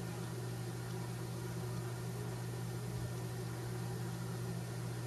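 Steady low hum with an even hiss over it, unchanging throughout: background room tone.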